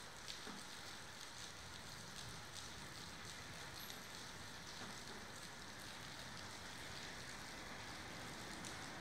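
Steady rain falling, with a few sharper drop hits scattered through it.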